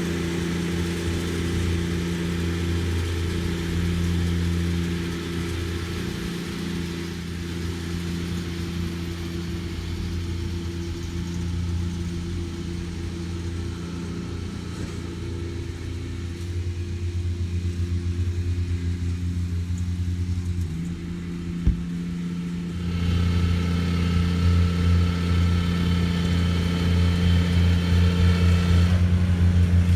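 Engine of the machine working the lawn with an Area-vator running steadily, easing off a little about seven seconds in and growing louder again, with a higher whine, about twenty-three seconds in; a single sharp knock comes just before the rise.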